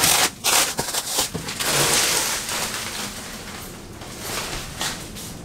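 Plastic stretch wrap being pulled and torn off a large cardboard box, crinkling and rustling, loudest in the first half and quieter after.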